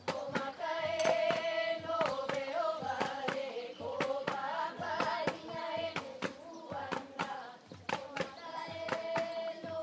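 Group of children singing a hula song together in held notes, over a steady beat of sharp percussive taps, about three a second.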